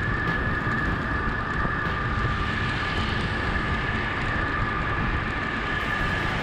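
A motorbike on the move: a steady rumble of engine, road and wind noise, with two steady high tones running through it.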